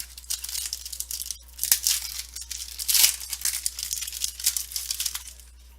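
Trading cards from a freshly opened pack being handled and slid past one another, with a dry, irregular rustling and crinkling that grows louder about three seconds in.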